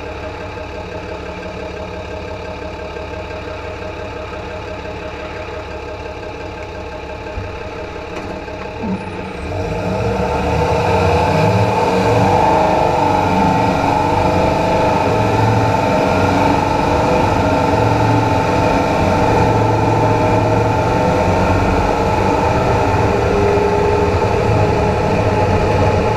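Dodge Ram pickup idling, heard from beneath the truck; about nine and a half seconds in it pulls away and the sound grows louder and busier with engine, drivetrain and road noise as it drives, its front axle turning with the manual locking hubs engaged.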